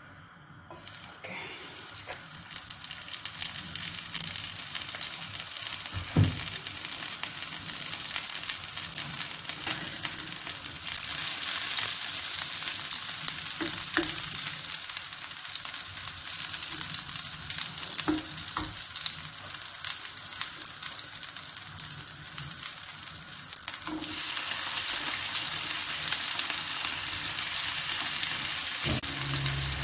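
Cooking fat melting and sizzling in a hot wok, the frying hiss building up over the first few seconds and then holding steady, with a wooden spoon knocking and scraping against the pan a few times. By the end, diced vegetables are frying in the fat.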